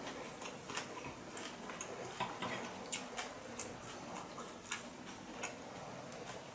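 Faint, irregular mouth clicks and ticks from chewing, a few each second.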